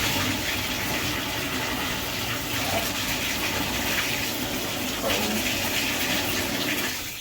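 Toilet flushing: a sudden rush of water that runs steadily and loudly, then dies away near the end.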